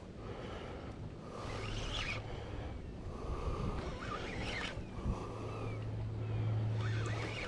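Fishing reel being cranked in short spells while a catfish of about ten pounds is fought on a heavy rod, with wind noise underneath and a low steady hum coming in about five seconds in.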